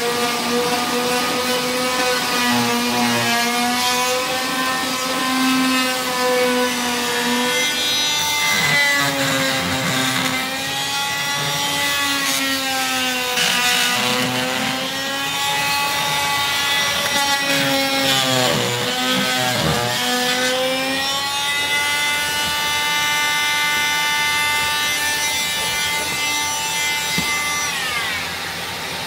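Oscillating multitool with a carbide rasp grinding thinset off cement backer board, its pitch wavering as it is pressed and moved, over the steady whine of a dust-extraction vacuum on a hose. The multitool stops about three-quarters of the way through, leaving the vacuum running.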